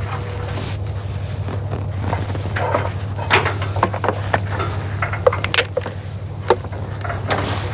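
Scattered clicks and light knocks of the dump-hoist remote's cord and wiring being handled at the hydraulic pump unit, over a steady low hum.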